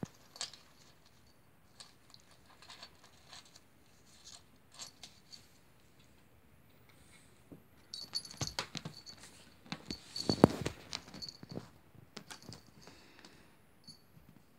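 A kitten playing on a laminate floor: scattered light taps and scrabbling of paws and claws, turning into a busier run of knocks and rustling about two-thirds of the way through, with one louder thump in the middle of it.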